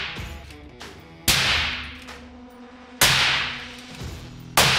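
Three suppressed 6.5 Creedmoor rifle shots through a SilencerCo Omega suppressor, evenly spaced about 1.7 s apart. Each is a sharp crack followed by a long, fading reverberation, with a faint steady music bed underneath.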